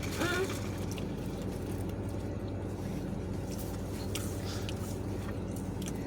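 Someone chewing a mouthful of pizza, with faint scattered clicks and smacks, over a steady low hum. A brief hummed sound comes at the very start.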